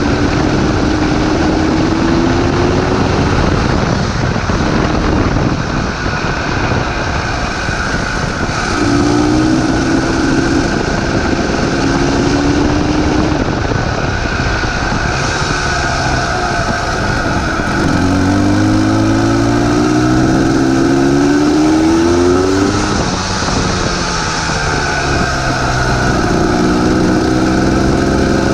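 Kawasaki KDX200SR single-cylinder two-stroke dirt bike engine revving under acceleration while riding, its note climbing again and again as the throttle is opened, with drops in between, over a steady rushing noise.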